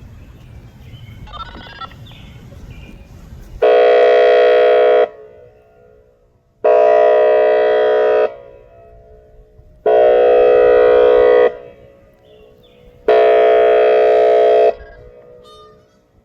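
Whelen WPS-2906 electronic outdoor warning siren sounding its airhorn tone: four loud, steady horn blasts of about a second and a half each, at one fixed pitch, evenly spaced, starting about three and a half seconds in.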